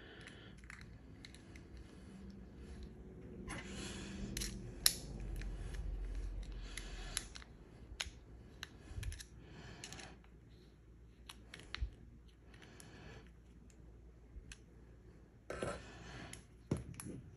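Faint handling noises of small vape hardware: scattered sharp clicks and taps with a few short scraping, sliding swells, as a Boro tank and its flush nut are fitted into a billet box mod.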